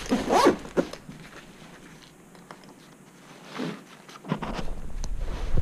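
A black fabric briefcase plate carrier being handled and folded shut: rustling cloth and soft bumps in the first second, a quieter spell, then more handling noise from about four seconds in, ending in a sharp knock.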